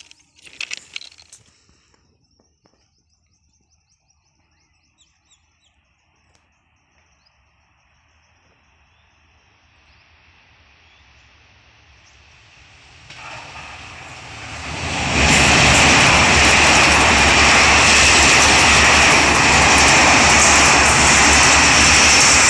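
Passenger train crossing a steel girder bridge: its rumble swells slowly from faint to loud as it approaches, then, about fifteen seconds in, becomes a loud, steady roar of wheels and coaches passing close by. There is a brief loud noise at the very start and a few faint bird chirps in the quiet stretch.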